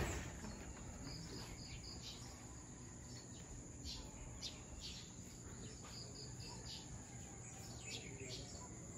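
Faint outdoor ambience: scattered short bird chirps with insects in the background, over a low steady rumble.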